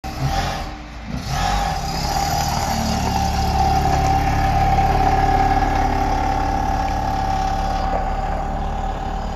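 Mazda rotary-engined car pulling away, revved briefly about a second in, then running with a steady buzzing drone.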